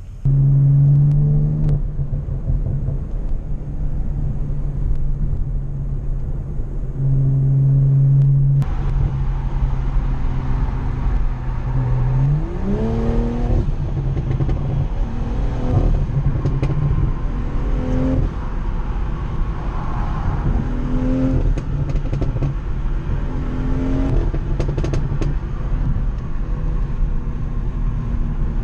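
BMW M340i's turbocharged 3.0-litre inline-six engine and exhaust heard from inside the car, first holding a steady drone. About twelve seconds in it revs up, then climbs in pitch in several short steps that each fall back, as when accelerating through gear changes, over tyre and road noise.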